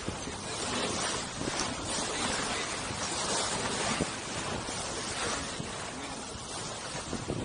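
Steady rush of wind and water as a sailboat heels under sail, the bow wake washing along the hull and wind buffeting the microphone, with a few brief louder splashes.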